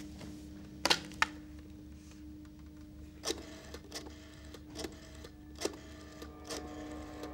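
Desk telephone handling: two sharp clacks as the handset is lifted about a second in, then a string of single clicks from the rotary dial as a number is dialled, under a steady low hum.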